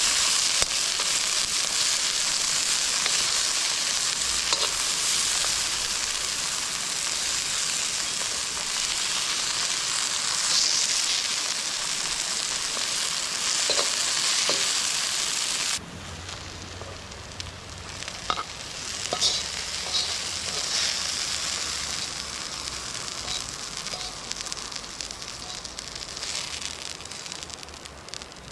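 Food sizzling and frying in a pan over a campfire: a dense, steady hiss. A little over halfway through, the sizzle cuts off abruptly, leaving quieter scattered crackles and pops.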